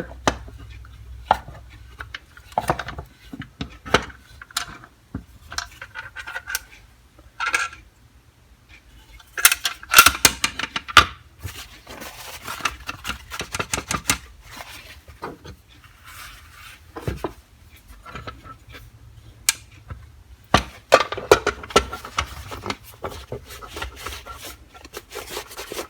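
Irregular clicks, clinks and short scraping of small hard parts and hand tools being handled while a vintage military multimeter is taken apart. There are louder clusters of knocks about ten seconds in and again near the end.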